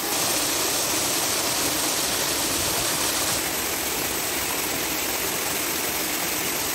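Water rushing steadily over rocks at a small forest waterfall and stream, an even, continuous splashing rush.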